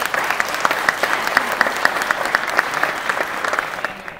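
Audience applauding, with loud sharp claps from one person close by standing out over the crowd's clapping; the applause dies away near the end.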